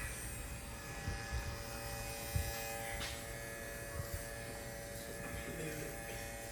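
Cordless Babyliss Pro hair clipper running with a steady buzzing hum while cutting hair, with a few soft low bumps from handling.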